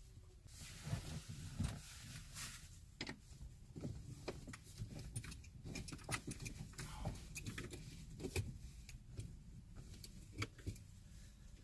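Faint, irregular clicks and small metallic rattles of a hex bolt and spacer being fiddled by hand into a threaded hole on a Jeep Wrangler's windshield pillar, while the bolt is being started.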